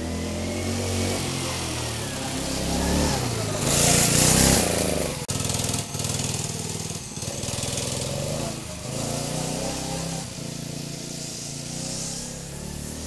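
Single-cylinder 79cc Harbor Freight 2.5 hp four-stroke engine on a homemade go-kart, governor removed, running with its pitch rising and falling as it is driven around. It is loudest about four seconds in as the kart passes close, then runs on a little farther off.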